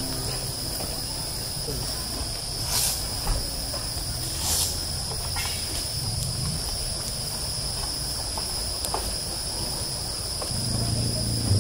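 Insects calling in a steady, unbroken high-pitched drone. Two brief rushes of noise come through about three and four and a half seconds in.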